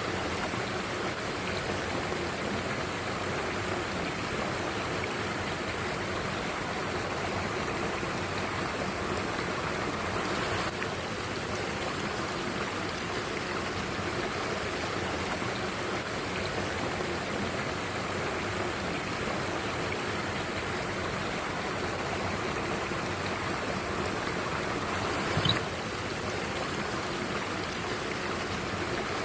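Mountain stream water rushing steadily over rocks, with one short sharp click near the end.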